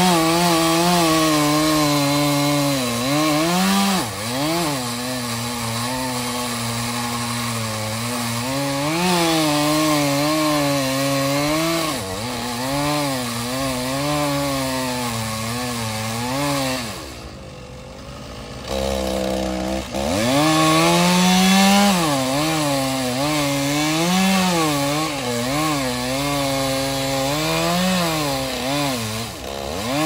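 Chainsaw cutting pecan wood, its engine speed rising and falling as the chain bites into the cut. About seventeen seconds in it drops briefly to idle, then revs back up and keeps cutting.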